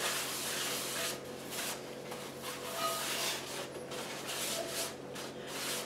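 Folded paper towel rubbing and wiping the inside of a Lodge cast iron skillet, clearing out leftover salt grains. The scrubbing is uneven, with short pauses between strokes.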